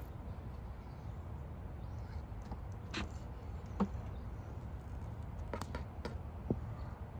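Scattered small clicks and scrapes from a razor blade on a stick cutting through a windshield's urethane bead, the sharpest nearly four seconds in, over a low steady rumble.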